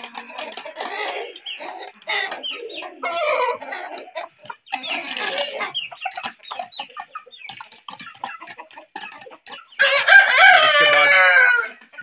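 Chickens clucking and calling while pecking grain from a feeder pan, with short clicks of beaks on the pan. Near the end a rooster crows loudly, one call of about two seconds.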